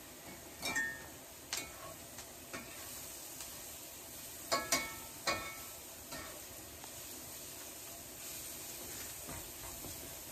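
Onions sizzling as they fry in a skillet. A metal slotted spatula stirs them, clinking and scraping against the pan. The sharpest clinks come about a second in and again a little past the middle.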